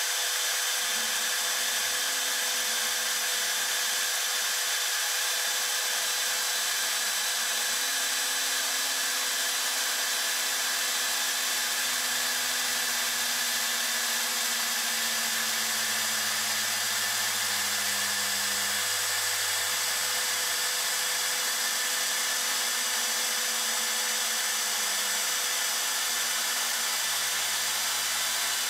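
Makita trim router running as the spindle of a CNC machine, cutting a rosette channel into an acoustic guitar top: a steady high whine, with a lower hum that changes pitch every few seconds.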